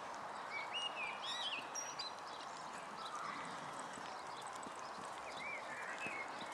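Horse trotting on a sand arena, its hoofbeats soft and muffled over a steady outdoor hiss, with a few high chirps about a second in and again near the end.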